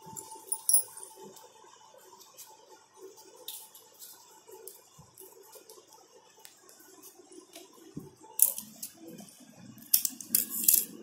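Hands handling a rolled-paper blowgun: light paper rustling and small clicks, with a few sharper taps near the end.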